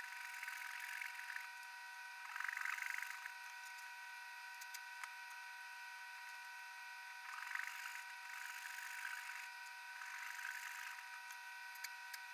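Near silence: a faint steady whine of a few high tones, with a few soft brief rustles.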